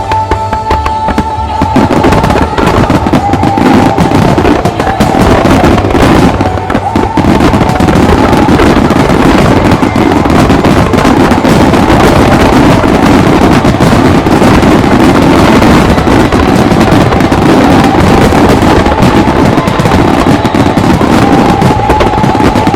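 A dense, continuous barrage of firework shells bursting and crackling, with the show's music playing underneath.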